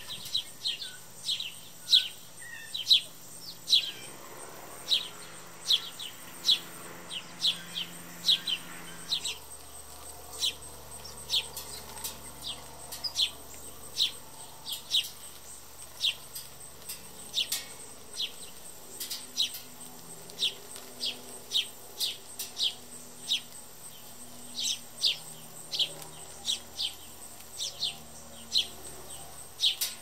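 House sparrows chirping: a steady run of short, sharp cheeps from several birds, about two a second.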